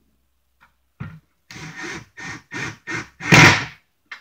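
Cordless drill run in a series of short trigger bursts, boring pilot holes for small brass hinge screws; the last burst, near the end, is the loudest.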